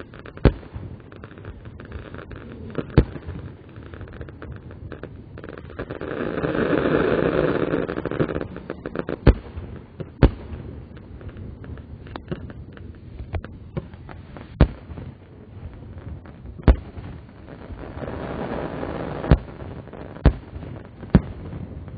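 Slowed-down recording of aerial fireworks bursting: about nine sharp bangs spaced irregularly, over a steady background rumble. A longer rushing swell rises a few seconds in, and a weaker one comes near the end.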